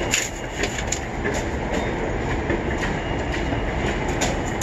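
Steady rumbling noise inside a tower crane cab, with irregular light clicks and rattles.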